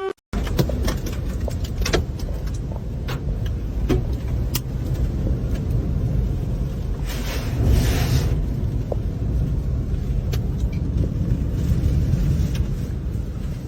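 Steady low rumbling noise with scattered sharp clicks and knocks, swelling briefly about halfway through; typical of storm wind buffeting the microphone.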